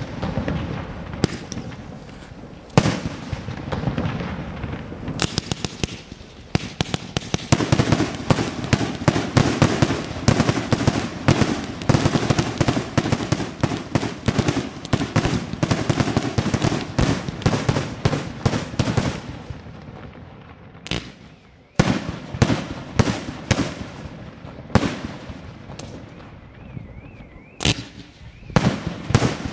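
Daytime firework cakes firing: rapid volleys of launches and sharp bangs, dense and near-continuous from about five seconds in until about twenty, then fewer, separate bangs after a brief lull.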